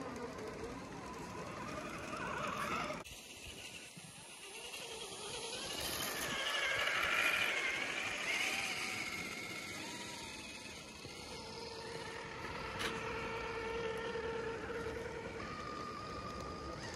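Electric motors and geared drivetrains of radio-controlled scale crawler trucks whining as they drive through deep snow, the pitch rising and falling with the throttle. The sound changes abruptly about three seconds in.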